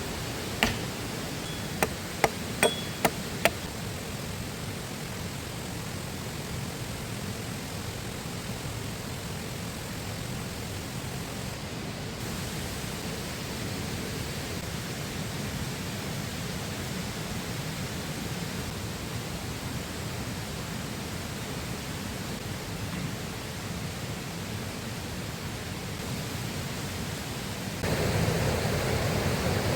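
A river flowing, a steady rush of water. In the first few seconds there are six sharp snaps or clicks, and about two seconds before the end the water sound suddenly gets louder.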